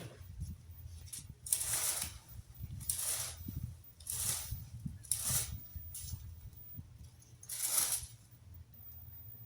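Rake scraping through dry leaves in repeated strokes, about five swishes roughly a second apart, with a low rumble of wind on the microphone underneath.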